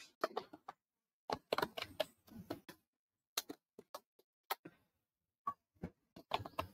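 Computer keyboard keystrokes while typing code: separate clicks in irregular small clusters, with a quick run of keystrokes near the end.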